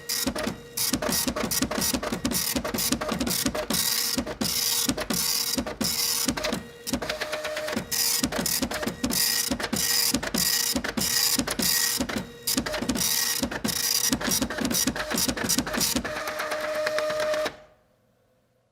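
A printer printing: a fast, uneven run of mechanical strokes over a steady whine, which stops suddenly near the end.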